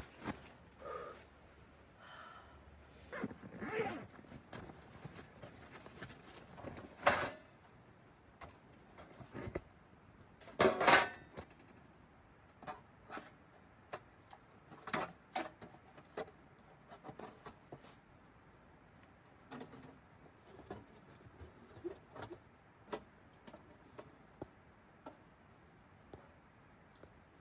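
Irregular light clicks, knocks and clatter over quiet gaps, with louder knocks about 7 and 11 seconds in.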